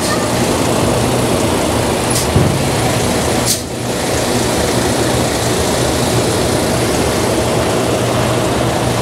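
Semi-truck diesel engines running steadily at idle close by, with a low steady hum. A short sharp sound cuts through about three and a half seconds in.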